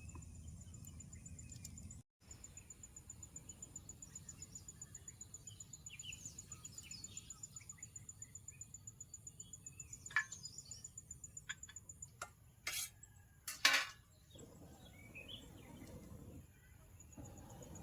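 Forest ambience: an insect chirring in a fast, even pulse, with faint bird chirps and a low steady rumble. A few sharp clicks and knocks come in the second half, the loudest a short scrape-like stroke.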